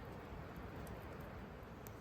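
Campfire crackling heard from inside a tent: a couple of faint sharp pops over a steady low rush of wind.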